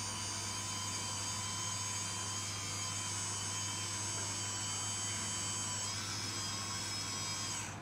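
Electric hydraulic pump of a 1/14-scale RC tipper truck whining steadily as the cylinder pushes the dump bed up. Its pitch rises slightly about six seconds in, then falls away and cuts off near the end.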